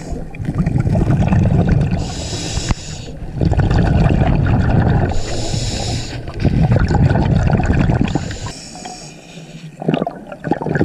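Scuba diver breathing through a regulator underwater: three cycles of a long, low bubbling exhale followed by a shorter hissing inhale.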